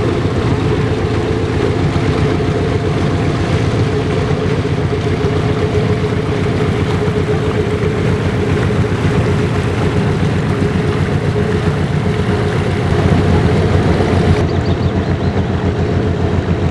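A small open boat's motor running steadily under way, with an even, fast pulsing. The higher hiss drops away shortly before the end.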